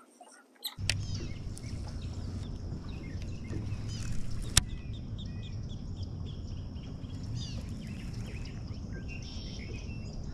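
Outdoor birds chirping over a steady low rumble, with one sharp click about four and a half seconds in.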